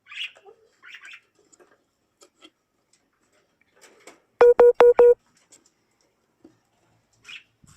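Four quick electronic beeps at one pitch, about a fifth of a second apart, about halfway through. Before them come a few faint high chirps from caged budgerigars.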